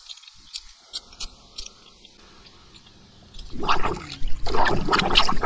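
Faint bubbling of water welling up around a leaking buried water pipe, then, about three and a half seconds in, a hand splashing and squelching loudly in the muddy water of the flooded hole.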